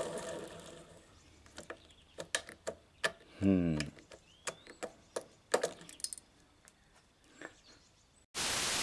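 Irregular light clicks and clinks of small metal parts being handled, with a short hum from a person about three and a half seconds in. Loud heavy-metal music cuts in suddenly near the end.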